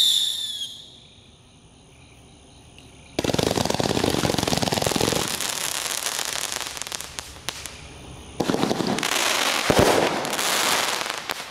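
Texas Outlaw "Men of Steel" 194-shot, 500-gram multishot fireworks cake firing. A whistling tone falls in pitch and fades in the first second. After a short lull, two long volleys of rapid-fire small shots and crackling follow, the first about three seconds in and the second about eight seconds in, with a single louder bang near ten seconds.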